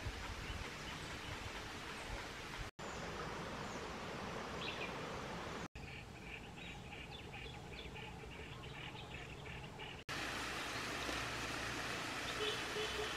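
Outdoor field ambience: a steady hiss with faint bird or insect chirps, including a run of evenly repeated high chirps in the middle. The background changes abruptly three times, each change marked by a brief dropout.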